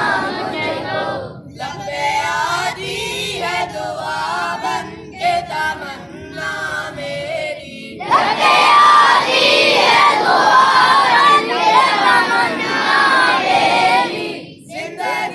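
A group of schoolboys chanting a prayer (dua) together in a sung, chorus-like recitation. The voices are quieter for a few seconds, then louder again from about halfway through.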